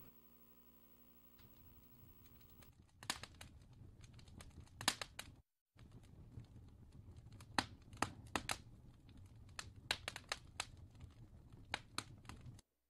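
Faint handling noise: a low hum at first, then scattered sharp clicks and crinkling rustles, cut off to silence twice for a moment.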